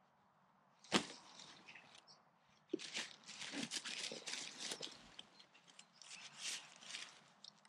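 Nylon stuff sacks of packed camping gear being handled: a soft knock about a second in as one is set down, then crinkly rustling of the fabric as the bags are moved around and lifted.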